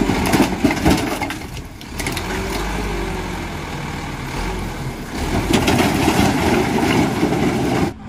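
Light tipper dump truck's engine running with its bed raised over a gravel pile, with a few sharp rattles about half a second in. It grows louder again in the last few seconds.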